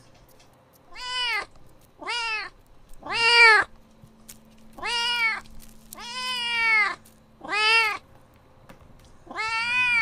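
A kitten meowing repeatedly, seven meows roughly a second apart, each rising then falling in pitch.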